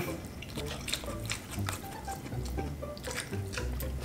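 Close-miked chewing and wet mouth sounds of people eating fried tilapia with their hands: irregular small smacks and clicks.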